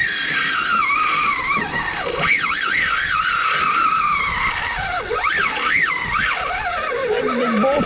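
Fishing reel's drag screaming as a hooked shark runs off with the line, its whine wavering up and down in pitch as the line speed changes.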